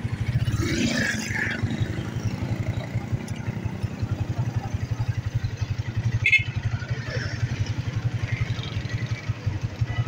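An engine running steadily, with a fast, even low throb.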